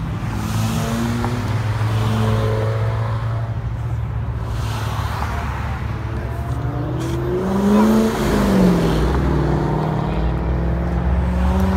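Car engines rumbling on the road. About eight seconds in, one car revs past, its engine note climbing and then dropping away.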